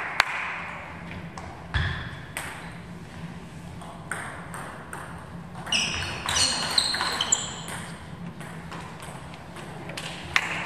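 Table tennis ball clicking off the bats and the table during a rally, with sneaker soles squeaking on the sports hall floor about six seconds in. Clapping starts near the end.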